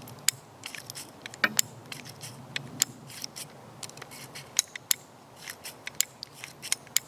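A string of irregular small metallic clicks from a Heritage Rough Rider .22 single-action revolver being unloaded: the cylinder turned chamber by chamber at half cock with the loading gate open, and the ejector rod pushing the empty shells out.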